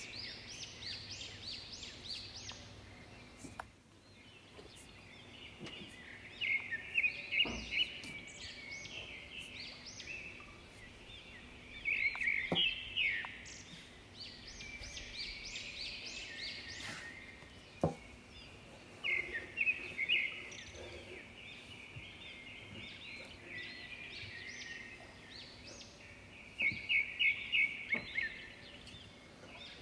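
Small birds chirping and twittering in repeated bunches of quick, high chirps and trills, the loudest bunches coming about four times, with a few faint taps in between.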